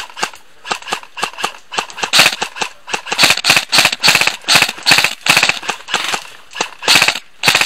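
Airsoft guns firing a quick string of single shots, sharp cracks at about four a second, with a short lull about six seconds in.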